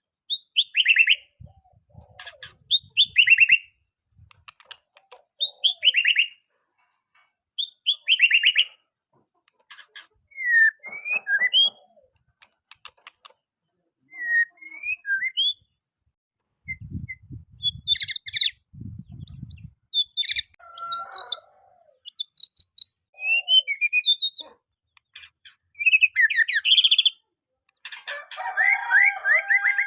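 Young white-rumped shama singing in short separate phrases of chirps and quick descending notes every couple of seconds, ending in a longer run of clear whistles.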